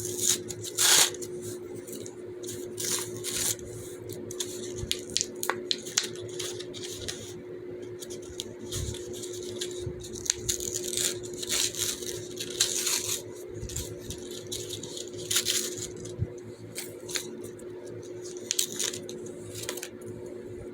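Plastic fidget toys being handled and played with: irregular clicks, taps and short clattering rustles over a steady hum.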